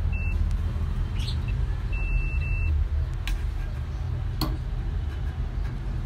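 Short high electronic beeps from a multimeter as its probes are used on a microwave magnetron's terminals: one broken beep right at the start and two about two seconds in. A steady low rumble lies under them, with a few sharp clicks in the middle.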